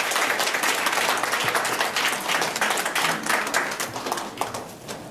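Audience applauding, many hands clapping together; the clapping thins out and fades near the end.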